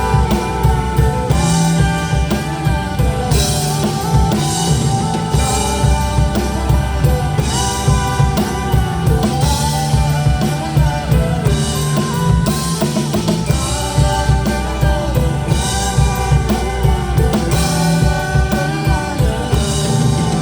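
Live band playing an instrumental passage of a pop-rock song: a drum kit keeps a steady beat under bass and a melody line, with no singing.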